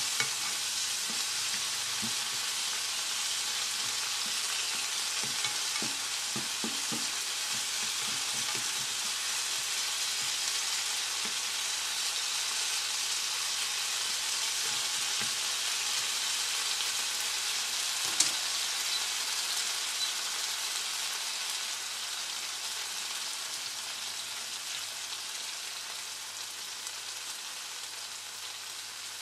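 Chopped tomatoes sizzling steadily in hot oil in a frying pan, stirred and scraped with a plastic slotted spatula over the first several seconds. There is one sharp click about two-thirds through, and the sizzle grows gradually softer toward the end.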